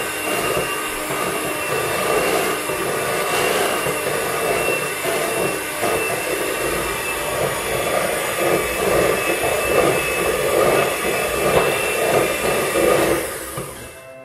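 Electric hand mixer running, its beaters churning a chocolate cake batter in a metal bowl with a steady motor whine, then switching off near the end.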